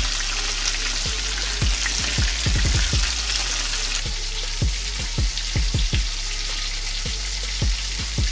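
Battered chicken pieces deep-frying in hot oil: a steady sizzle with frequent short low thumps.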